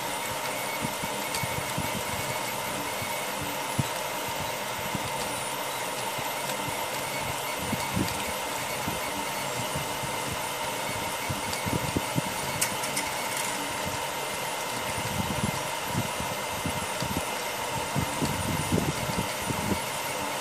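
FDM 3D printer running a print: a steady whir from its fans, with irregular low buzzing and knocking from the motors as the print head and bed move, busier in the last few seconds.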